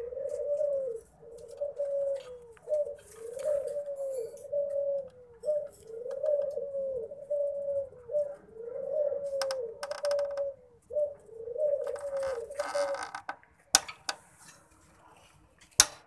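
A dove cooing over and over in low, wavering phrases about once a second, stopping about 13 seconds in. Near the end come two sharp clicks as the wooden nest-box door is handled.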